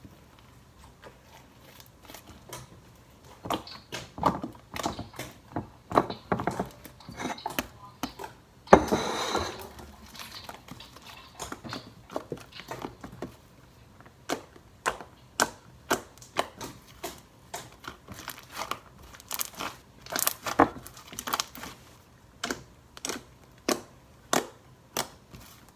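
Irregular light clicks and taps, close by, with a short rustling burst about nine seconds in.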